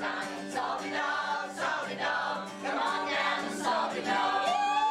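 A group of people singing together, with music under them.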